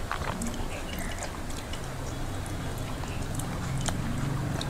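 Two people eating khichuri with their hands: soft wet chewing and lip-smacking, with fingers mixing rice on steel plates, heard as many small sharp clicks over a low hum.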